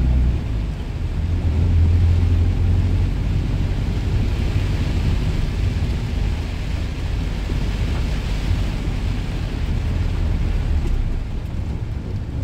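Truck driving in heavy rain, heard from inside the cab: a steady low engine and road rumble, with the hiss of rain and wet tyres swelling in the middle.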